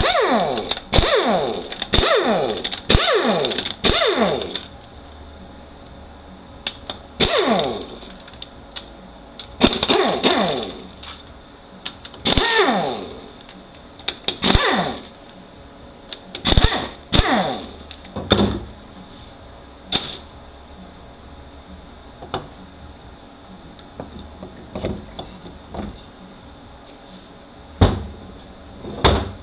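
Handheld power ratchet run in short bursts, each whir falling in pitch as it winds down, backing out the valve-body bolts of a Toyota U660E automatic transmission. The bursts come about once a second for the first few seconds, then more spaced out, with a few lighter knocks toward the end.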